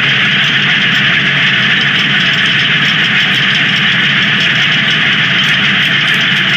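Engine of a 1920 Pioneer 18-36 tractor running steadily as the tractor drives, heard loud from the driver's seat.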